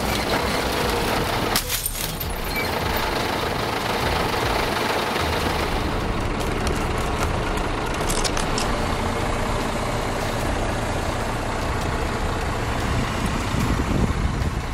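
A 7-ton truck's engine running steadily as its tyre presses down on a stack of glass sheets, with short sharp cracks of breaking glass about two seconds in and again about eight seconds in.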